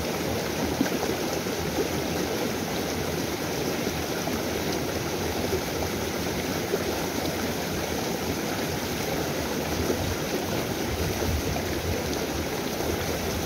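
Small, shallow stream rushing steadily over a low drop and rocks: a constant, even wash of running water.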